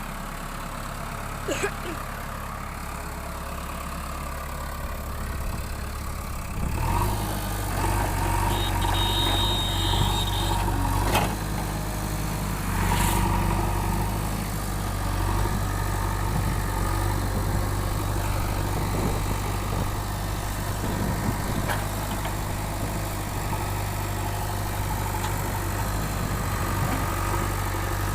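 JCB backhoe loader's diesel engine running steadily, growing louder about seven seconds in, with a few brief knocks.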